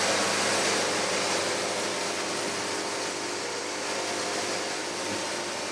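Portable band sawmill running: a steady mechanical hum with a wide noise over it, easing off slightly in level.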